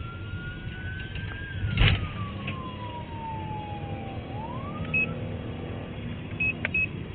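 Emergency-vehicle siren wailing slowly up and down and cutting off about five seconds in, heard inside a moving police patrol car over steady engine and road rumble. A sharp thump comes just under two seconds in, and a few short high beeps sound near the end.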